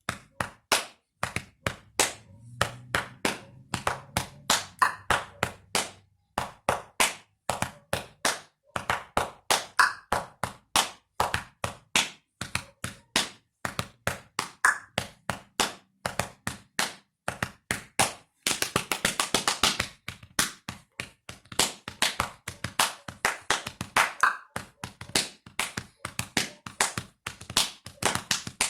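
Body percussion: palm slaps on the chest and thigh played in a steady drum-kit-like rhythm, about three to four strikes a second, with a brief faster flurry around two-thirds of the way through.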